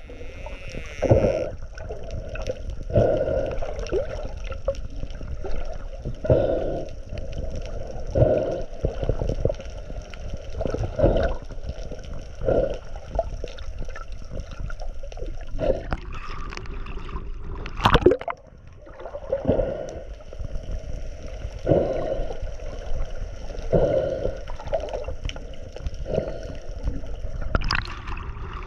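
Water gurgling and sloshing close to the microphone in repeated surges every one and a half to two seconds, over a steady low rumble.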